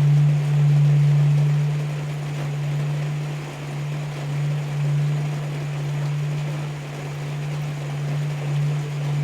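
Tibetan singing bowl holding one low, steady tone that wavers in loudness without dying away, over the even hiss of heavy rain.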